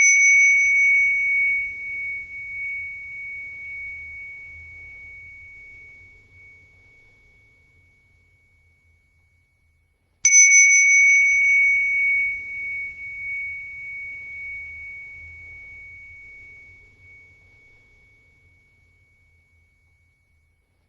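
A bell rings from a strike right at the start and is struck again about halfway through. Each time a single clear high tone fades away slowly over about ten seconds.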